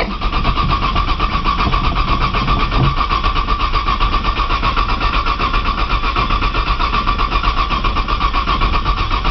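Starter motor cranking a cold 1995 Nissan Maxima V6 in an even, rapid rhythm without the engine catching. It is a hard cold start that the owner thinks may come from a bad sensor.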